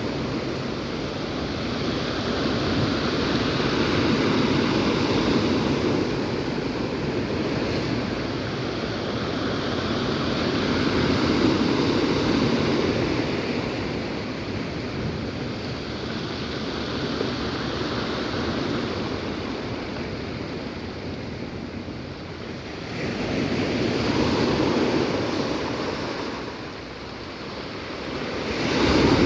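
Sea surf breaking on the shore, a continuous wash that swells and ebbs over several seconds as each wave comes in and draws back, dipping twice in the second half before another wave surges near the end.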